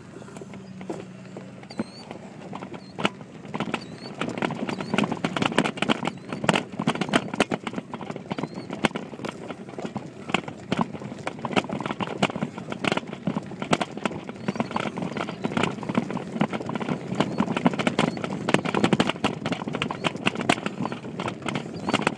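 Mountain bike rattling and clattering over a bumpy dirt track, picked up by an iPhone 4 in a LifeProof case on a handlebar RAM mount. It is a dense, uneven run of knocks that starts about three seconds in and goes on from there.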